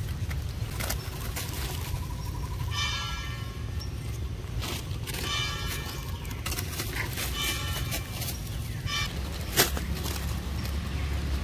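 Macaques calling: three high, pitched cries with rich overtones, the last one longer, over a steady low rumble like wind on the microphone. A single sharp click comes about nine and a half seconds in.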